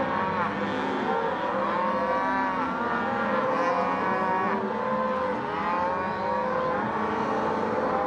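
A herd of Simmental–Black Angus cross cattle mooing, many calls overlapping without a break.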